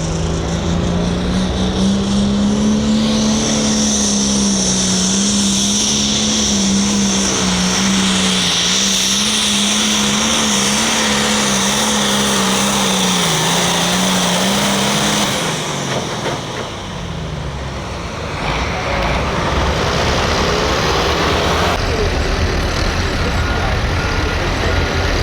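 Turbocharged diesel hot farm tractor under full load on a pull: the engine runs at high revs with a high turbo whistle over it, its pitch wavering slightly. About fifteen seconds in, the engine note and whistle fall away. A rougher, lower engine noise follows after a brief dip.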